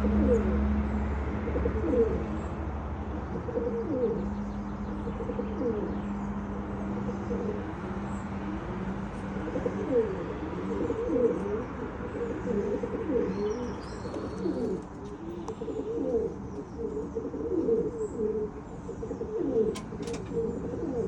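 Several domestic pigeons cooing over and over, their calls overlapping. A steady low hum fades out in the first few seconds, and a few faint high bird chirps come about two-thirds of the way through.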